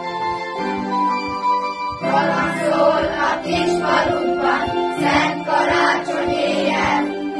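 Electronic keyboard playing the introduction of a Christmas song in steady held chords; about two seconds in, a choir of children and teenagers starts singing along with it.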